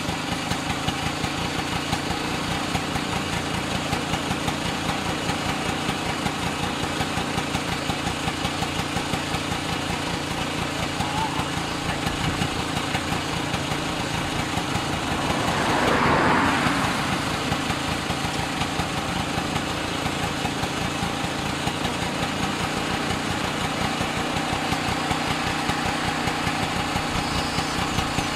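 Vehicle engine idling steadily with a fast even pulse. About halfway through, another vehicle's sound swells up and dies away as it passes.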